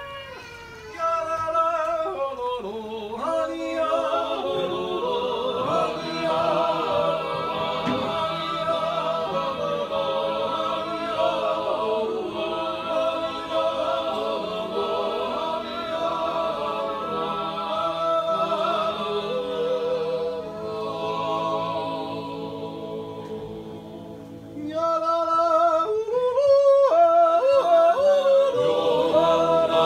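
An Appenzell men's choir singing unaccompanied, a slow wordless yodel in held close-harmony chords. It grows louder about a second in, eases off briefly, then swells louder with a new phrase near the end.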